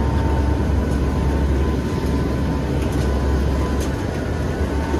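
Loud, steady cabin noise inside a hurricane hunter aircraft in flight: the deep drone of its turboprop engines, with a thin steady whine above it and a few faint ticks of rattling equipment.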